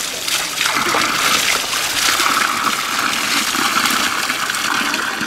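Steady jet of water pouring from a pipe spout and splashing onto the ground, its splashing broken up as vegetables are rinsed by hand in the stream.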